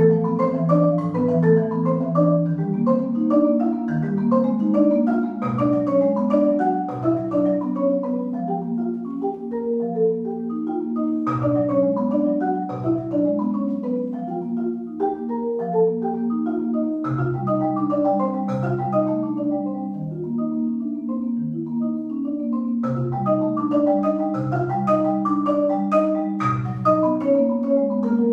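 Solo Adams marimba played with four mallets: a continuous run of rolling melodic figures over low notes that ring on, with a few sharper accented strikes along the way.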